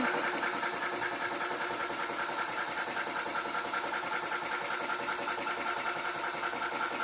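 Tuxing 4500 PSI high-pressure PCP air compressor running steadily under load, a fast, even mechanical chatter.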